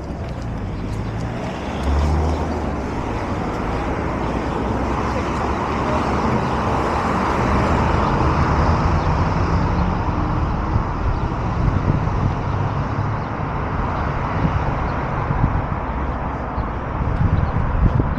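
Road traffic noise: a car passing along the street, swelling to its loudest about halfway through and then slowly fading.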